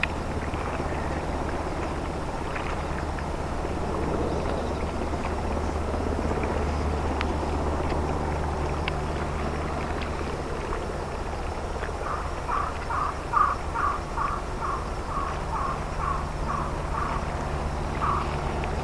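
Steady low engine drone of the YDT01, a small naval diesel vessel, coming into harbour. About two thirds of the way in, a run of short high chirps repeats three or four times a second for several seconds.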